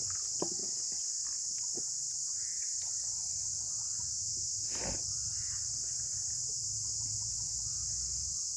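Steady high-pitched chirring of crickets, with a low hum underneath and a sharp knock about five seconds in.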